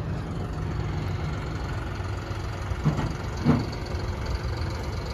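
Large diesel engine idling steadily, with two brief short sounds about three seconds in.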